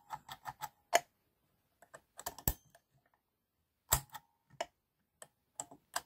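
Scattered sharp metallic clicks and ticks of a foil-wrapped impressioning key being rocked and turned in a brass padlock's keyway, in irregular clusters with short silences between.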